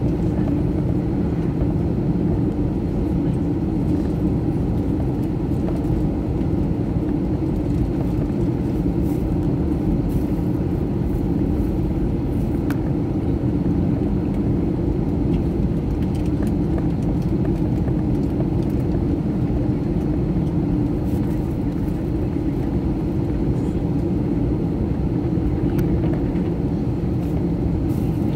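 Steady low rumble inside a jet airliner's cabin while it taxis: engines at low power and cabin air, unchanging throughout.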